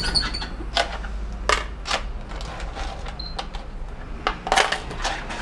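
Irregular small clicks and clinks of hands rummaging in the bus driver's slotted console tray, over a steady low hum.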